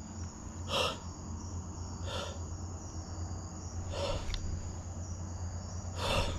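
Crickets trilling steadily at night over a low, steady hum, with four soft swishing scuffs about a second and a half apart.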